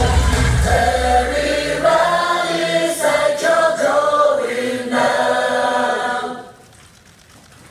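Female idol group singing a melody in unison into microphones over amplified live backing music. About a second in the deep beat drops out, leaving the voices nearly alone; they stop a little after six seconds and the sound falls away to a quiet lull.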